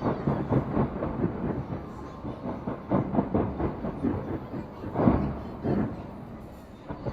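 Fireworks going off: a dense run of pops and crackles, with two louder bangs about five and six seconds in.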